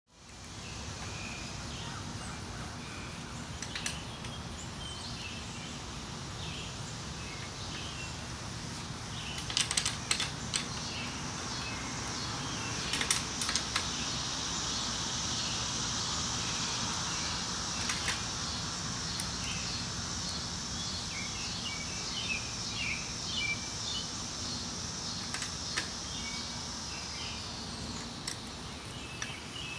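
Outdoor ambience: birds chirping and a steady high insect drone over a low background rumble. A few sharp clicks come in short clusters about a third of the way in.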